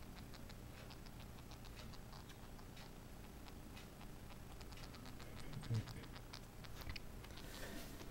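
Faint, irregular small ticks and scratches of a pet mouse moving about its wire cage and wood-shavings bedding, with one soft low bump a little past the middle.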